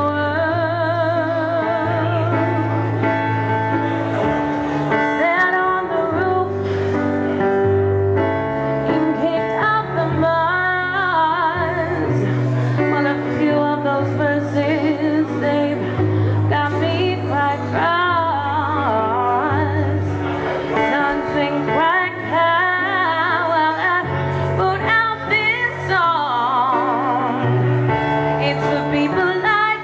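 A woman singing a slow song with vibrato, accompanied on electronic keyboard: held chords and bass notes that change about every two seconds.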